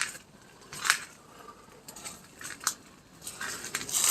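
A few scattered sharp crunches and clicks, the loudest about a second in and another a little before three seconds, then a rustling near the end.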